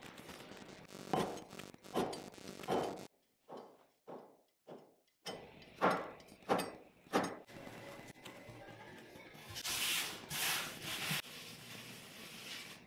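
A knife chopping a rope of dough into pieces on a bamboo cutting board: a series of sharp knocks, each well under a second apart. Near the end, palms press and rub the floured dough pieces on the board, a brushing sound.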